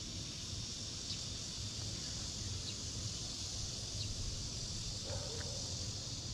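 Outdoor summer ambience beside a rice paddy: a steady high-pitched insect drone, with a low rumble underneath and a few faint short chirps.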